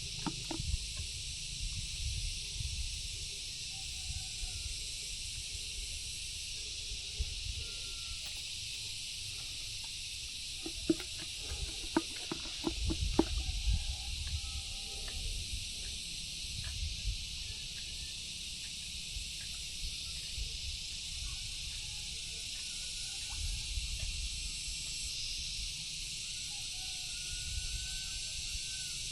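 Steady high-pitched chorus of insects, with a few faint short calls over it and a cluster of knocks and low rumbling about eleven to fourteen seconds in.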